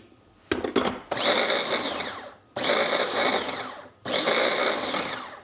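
Electric food chopper pulsed three times, each run lasting about a second and a half with the motor's pitch falling, grinding garlic, onion, tomato, ginger and turmeric into a satay marinade paste. A click comes just before the first pulse.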